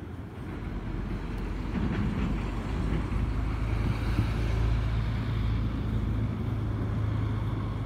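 Low engine rumble of a motor vehicle out of sight, a steady deep hum that grows louder over the first few seconds and then holds.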